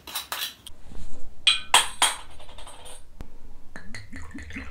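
A few sharp glassy clinks and clicks, one ringing briefly, as a glass soju bottle and shot glass are handled; then, near the end, soju glugging out of the glass bottle into a shot glass in quick rising gurgles.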